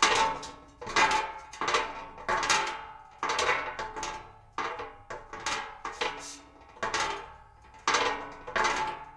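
A run of metal crashes and clangs, about fifteen hits at uneven spacing, each ringing briefly and dying away. It sounds like sheet metal, a bucket and armour being struck and dropped.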